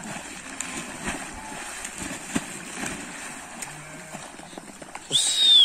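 Sheep leaping off a bank into a pond and swimming: a steady wash of splashing water with small knocks. About five seconds in comes a loud, short, high whistle-like tone that slides down in pitch.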